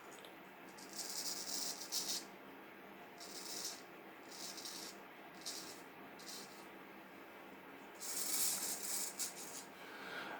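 Straight razor edge scraping in a run of about nine short hissing strokes, irregularly spaced, with a longer stroke of about a second near the end.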